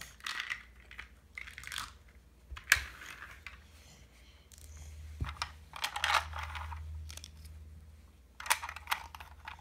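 Hard plastic toy pieces being handled, with scattered clicks and rattles and a sharp click about three seconds in.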